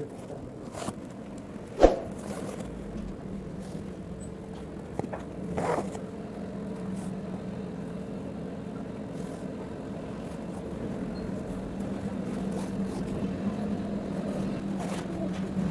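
A steady low mechanical hum that grows slightly louder, with a sharp click about two seconds in.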